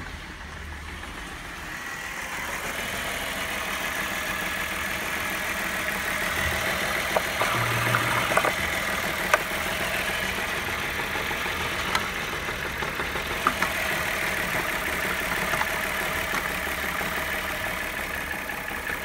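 Ford Galaxy's 2.8-litre VR6 petrol engine (code AMY) idling steadily, getting louder over the first few seconds, with a few sharp clicks around the middle.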